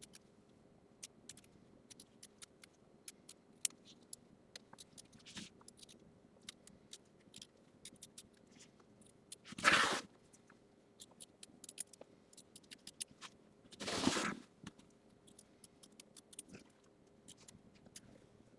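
Small scissors snipping away excess appliqué fabric close to the tack-down stitching: many faint, quick snips. Twice a louder swish lasting about half a second.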